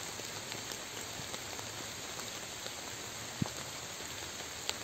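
Steady rain falling on the leaves of the forest floor, with a couple of louder single drops near the end.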